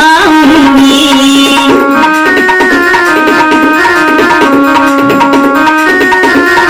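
Indian folk-style music with tabla: a wavering melodic line ends in the first couple of seconds, then an instrumental passage of long held notes over the drum rhythm.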